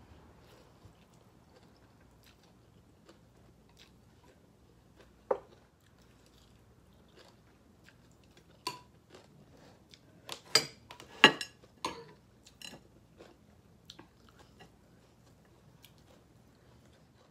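A person chewing and biting food close to the microphone, with scattered sharp crunches. They bunch into a loud cluster about two-thirds of the way through.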